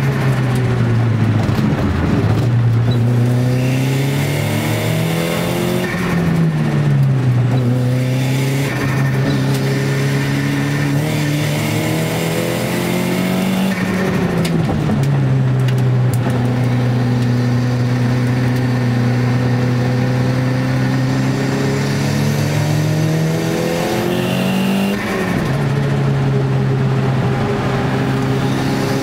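Nissan Gazelle's CA20DET turbocharged four-cylinder engine heard from inside the cabin at racing speed. The engine note holds or climbs slowly, then drops sharply about four times as the car lifts and shifts for the corners.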